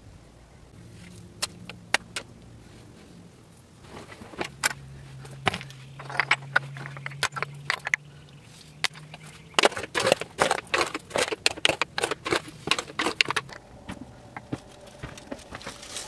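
Stones knocking, clinking and scraping against each other as rocks are handled and set into a stone wall: scattered sharp clacks, crowding into a quick run of clatter and scrapes from about ten to thirteen seconds in.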